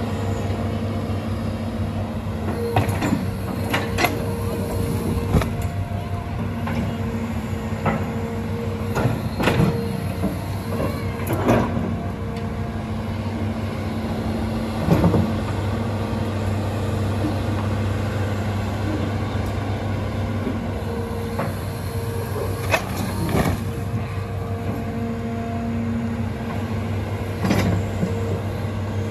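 Hitachi ZX210LC long-reach excavator's diesel engine and hydraulics running steadily under working load. A sharp knock or clank comes every few seconds.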